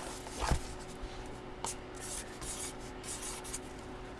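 Faint rubbing and handling noises from hands working with packaging or a ball, with a couple of light clicks, about half a second and a second and a half in.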